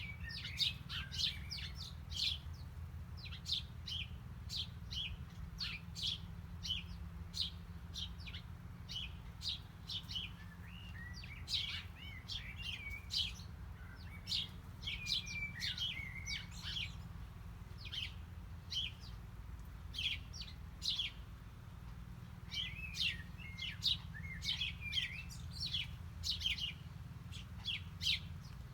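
Small songbirds chirping and twittering in rapid, overlapping short calls, with a few brief pauses, over a steady low hum.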